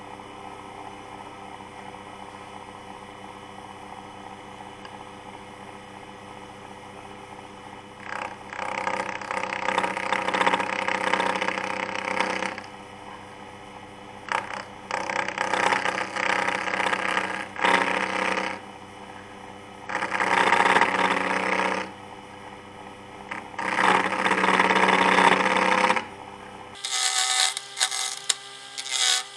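CNC007 mini lathe's small motor running with a steady hum, joined from about eight seconds in by four louder passes of several seconds each as a tool cuts into the spinning black alder blank. Near the end the hum drops away and short, quick strokes begin.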